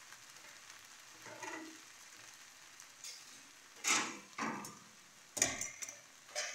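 Slotted metal spatula stirring and turning cooked vegetable rice in a frying pan, with a faint steady hiss. Four quick scraping strokes come in the second half.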